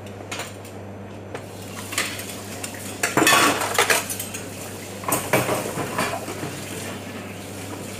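Dishes, pots and cutlery clattering and clinking as they are washed up, with louder bursts of clatter about three seconds in and again about five seconds in. A steady low hum runs underneath.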